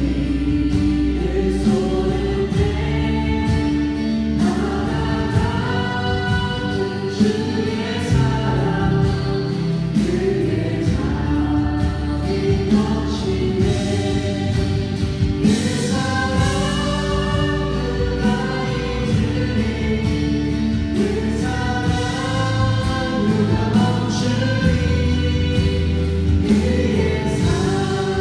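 A group of voices singing a Christian praise song together over a steady instrumental accompaniment.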